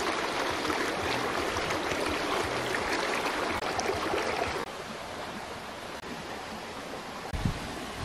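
Steady rush of a shallow stream flowing over rocks. A little under five seconds in it drops abruptly to a quieter, even outdoor hiss, with a soft low thump near the end.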